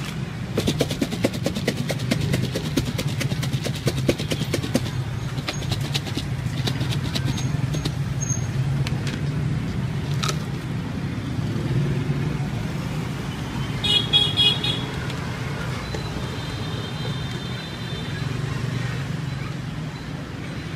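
Clear plastic container being shaken by hand, mango pieces and chili seasoning knocking inside in a quick, dense rattle for the first eight seconds or so. Under it runs a steady low traffic hum, and a short horn toot sounds about two-thirds of the way in.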